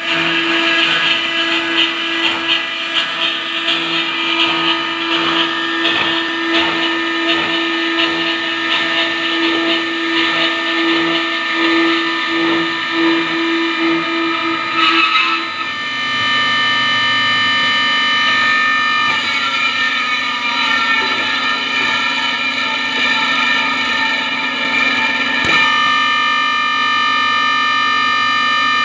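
Circular saw machine cutting stainless steel: a steady high-pitched whine with a rough, pulsing grind in the first half. About halfway through the grind drops away and the sound settles into a smoother, steady ring.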